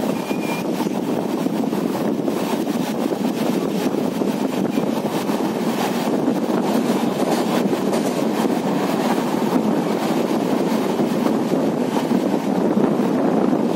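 Passenger train running at speed, a steady rumble of wheels on rail heard from a window seat, with wind across the microphone.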